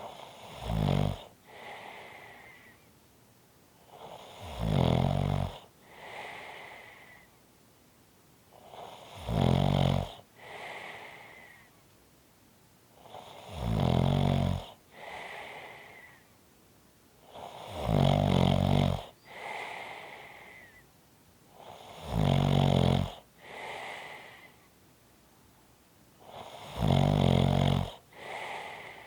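Slow, regular snoring: seven loud snores about every four seconds, each followed by a quieter, whistling breath.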